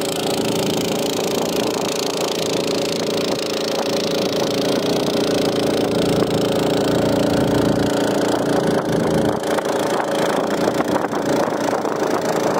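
Sonali 170FD 7.5 hp, 208 cc single-cylinder four-stroke petrol long-tail boat engine running steadily while driving the boat along.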